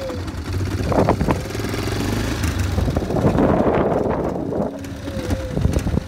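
Quad bike (ATV) engine running with a steady low hum. A rushing noise swells about three seconds in and fades a second or so later.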